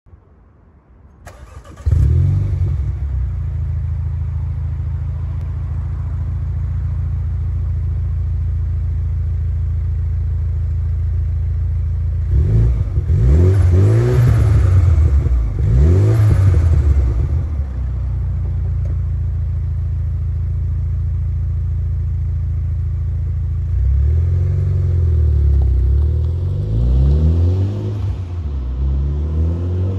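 2019 Mini Cooper S's turbocharged 2.0-litre four-cylinder through a non-resonated Scorpion GPF-back exhaust, started with a loud flare about two seconds in, then idling steadily. It is revved twice around the middle, rising and falling each time. Near the end it accelerates away, the pitch climbing several times as it goes.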